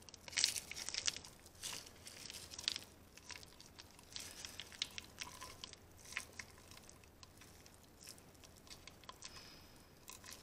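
Soft, irregular squelching and crackling of thick grease being worked by gloved fingers into the end housing of a driveshaft CV joint, with small handling clicks. The sounds come thickest in the first few seconds and thin out after.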